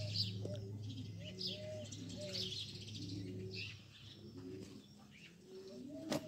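Pigeons cooing in a string of short, arched notes, with small birds chirping higher up. A steady low hum lies underneath for the first few seconds, and there is a sharp click near the end.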